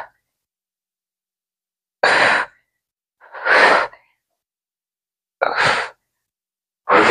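A person breathing hard and forcefully through repetitions of a gym exercise: four short, sharp breaths, about one every second and a half.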